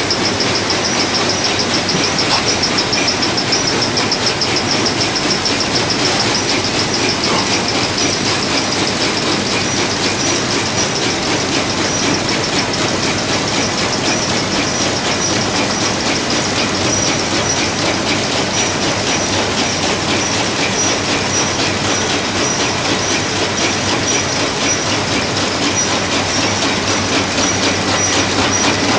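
Biscuit vibration-feeding and packing line machinery running: a steady, loud, fast mechanical rattle with a steady high whine over it.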